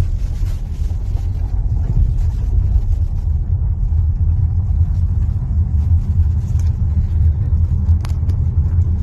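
Car driving on the road, heard from inside the cabin: a steady low rumble of engine and tyre noise, with a brief click about eight seconds in.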